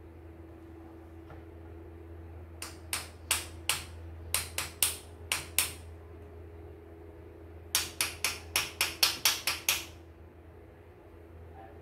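Two runs of sharp, hard knocks, like hammer blows: first about eight uneven ones, then after a short pause about nine quicker ones, some four a second. A steady low hum runs underneath.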